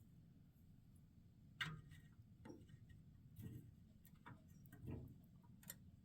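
Faint clicks and light knocks, about one a second and unevenly spaced, from hands working the controls of a 1973 Westinghouse dehumidifier that is switched off.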